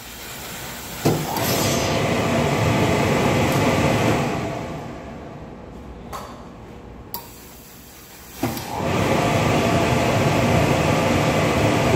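Industrial steam-pressing station in use, a Reliable steam iron on a vacuum ironing table: two long bursts of steam and suction, each starting with a click. The first fades out after a few seconds; the second starts about two-thirds of the way in.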